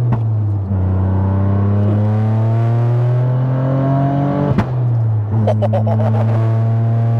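A highly tuned, big-turbo GR Yaris three-cylinder engine, heard from inside the cabin, accelerating hard. Its pitch rises, drops at an upshift about half a second in, climbs again, and drops at a second upshift about four and a half seconds in with a sharp crack. It then holds a steady pitch with a few light crackles.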